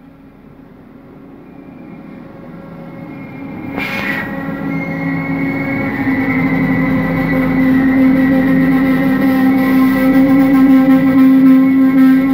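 A train approaching and getting steadily louder, its drive giving a steady, pitched hum. About four seconds in, a short rush of noise.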